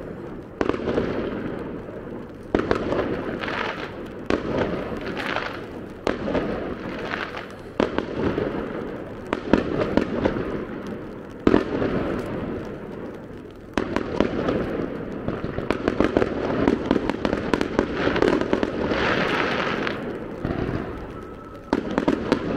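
Aerial fireworks going off in a continuous barrage: shell bursts every second or two, over a dense run of rapid small pops from crackling stars.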